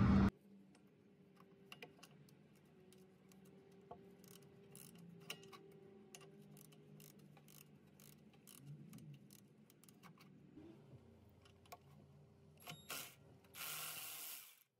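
Faint, irregular metallic clicks and ticks of a hand wrench or ratchet loosening and backing out a 12 mm bolt near a brake caliper. A short scraping rush comes near the end.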